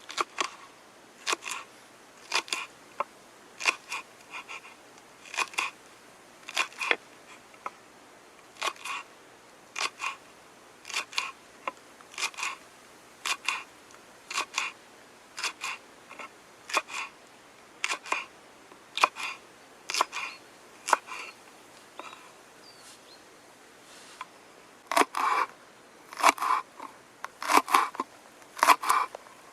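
Kitchen knife chopping vegetables on a cutting board: crisp cuts about once a second, each often a quick double tap as the blade goes through and meets the board. Near the end the cuts come faster and louder.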